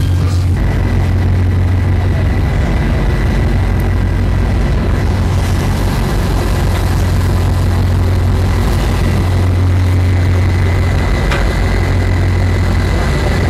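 A warship's machinery running as a steady low drone, with a thin steady high whine that comes in about half a second in.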